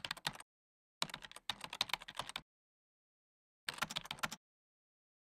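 Typing sound effect: rapid key clicks in three runs with silent pauses between them, matching text being typed out letter by letter on a title card.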